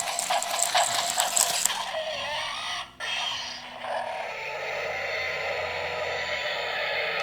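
Electric motor and plastic gears of a remote-control toy velociraptor walking: rapid ratcheting clicks for the first couple of seconds, then a steady whir, broken briefly about three seconds in.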